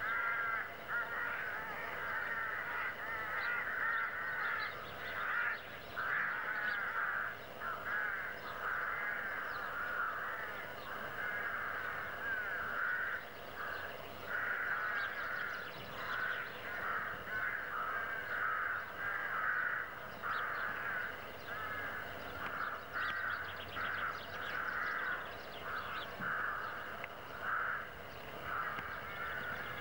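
A flock of crows cawing continuously, with many short calls overlapping.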